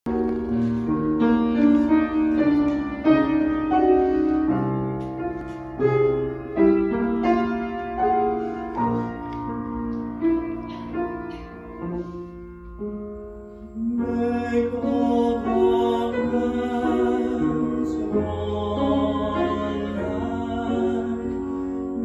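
Piano playing a slow, classical-style introduction in separate struck chords. About fourteen seconds in, a sustained sung line with vibrato joins the piano.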